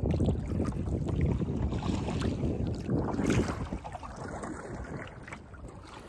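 Wind gusting over the microphone in a low, buffeting rumble, easing off in the last couple of seconds, with water lapping around a kayak on the river.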